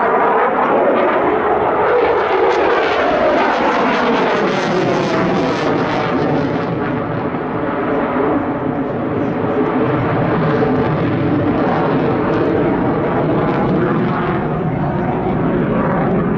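Eurofighter Typhoon's twin EJ200 turbofan engines: loud, continuous jet noise whose pitch keeps sweeping up and down as the fighter manoeuvres overhead.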